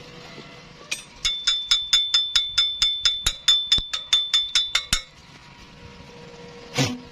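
A hammer striking steel in a fast, even run of about six blows a second for about four seconds, the metal ringing with a high tone, then one more single knock near the end.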